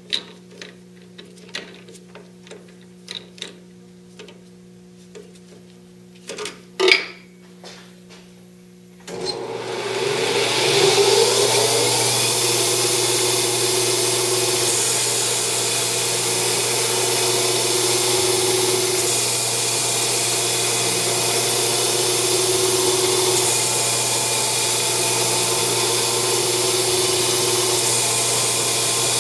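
Scattered clicks and knocks of an aluminium workpiece being clamped in a lathe chuck, with one louder clank about seven seconds in. About nine seconds in, the CNC-converted Grizzly G0602 lathe's spindle starts and runs steadily while the tool cuts the spinning aluminium stock.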